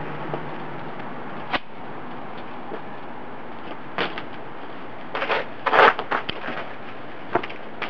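A BMX bike knocking and clattering as the rider pulls a barspin and lands, with a burst of loud rattles and thuds about five to six seconds in, the loudest near six seconds. A steady hiss of background noise lies under it.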